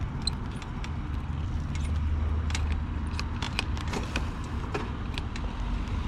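Fat-tire e-bike in motion: a steady low rumble from the ride, with irregular sharp clicks and light rattles scattered throughout, as from the bike and its gear shaking over the road.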